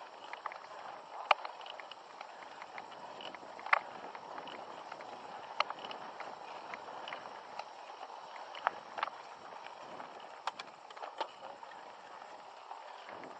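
Mountain bike ridden up a trail climb: a steady rolling noise of tyres on dirt, with irregular sharp clicks and knocks from the bike over rough ground, the loudest about a second in and again near four seconds in.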